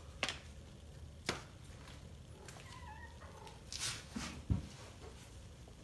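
A few sharp taps and a short rustle, with a faint brief wavering call from a domestic cat near the middle and a dull thump about four and a half seconds in.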